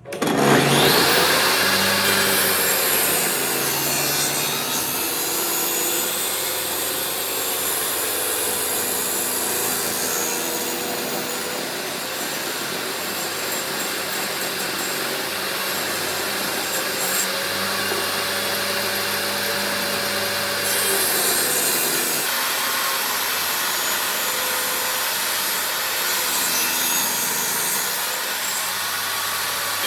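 An electric power tool cutting or sanding wood. It starts up suddenly, then runs steadily under load, its motor pitch wavering slightly.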